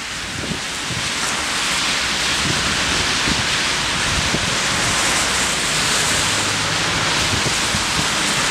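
Thunderstorm squall: a steady, even rushing hiss that swells about a second in, with low wind buffeting on the microphone underneath.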